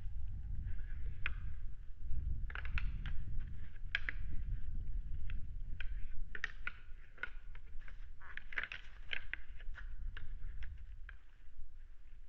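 Low wind rumble on an outdoor microphone with irregular clicks and crackles scattered through it. In the first half second a steady owl hoot dies away.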